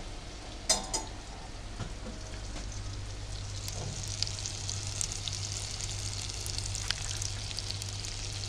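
Butter melting and sizzling in a hot stainless-steel saucepan: a steady crackling hiss that grows a little stronger after the first couple of seconds. The pan is hotter than ideal, so the butter melts fast. A brief clink near the start.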